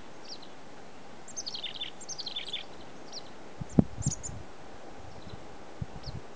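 Chickadees calling: two quick series of high chips dropping in pitch, about a second and two seconds in, and scattered single chips after. A short thump with some rustling comes about two-thirds of the way through.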